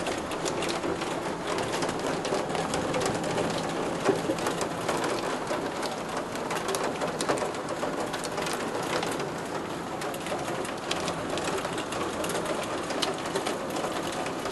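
Heavy thunderstorm downpour beating on a window pane and sill: a steady hiss of rain dotted with many sharp drop impacts.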